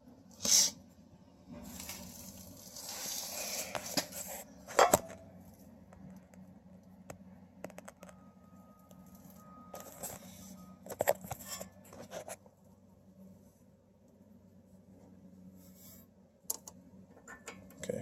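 Hand work on car suspension parts: a stretch of scraping and rustling in the first few seconds, then a few sharp metallic clicks and clinks spread through the rest, as a bolt is handled and coated with anti-seize.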